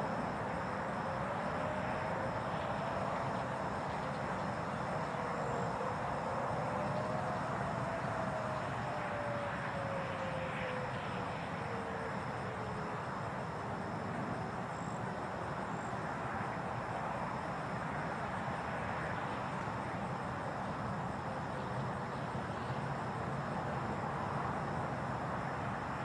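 Distant Federal Signal 2001 outdoor warning sirens sounding the Attack signal: several faint tones slowly rise and fall together and die away about halfway through. Underneath is steady outdoor background noise.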